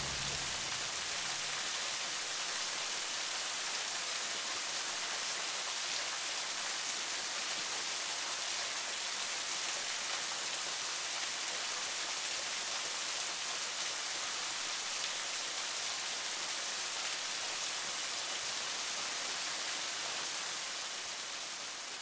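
Water from a small waterfall falling and splashing as a steady, even hiss.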